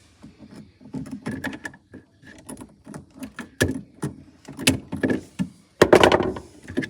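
A run of irregular knocks, clicks and clatters from handling, with the loudest, longer clatter about six seconds in.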